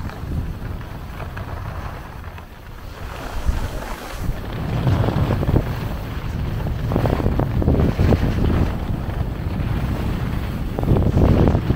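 Wind buffeting the built-in microphone of a handheld DJI Pocket 2 camera while skiing downhill, as a constant low rumble. The hiss and scrape of skis on packed snow rises in irregular swells from about four seconds in and is loudest near the end.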